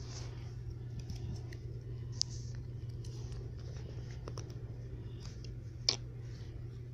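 Rustling and scattered small clicks of a phone camera being handled and moved, over a steady low hum, with a sharper click about two seconds in and another near the end.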